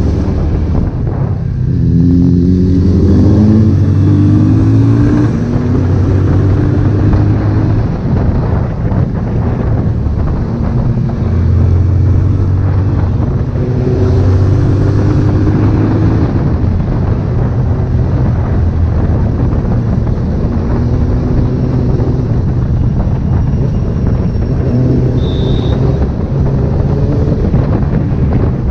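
Honda CB1000R's inline-four engine running while riding, rising in pitch as it accelerates through the gears a couple of seconds in and again around the middle.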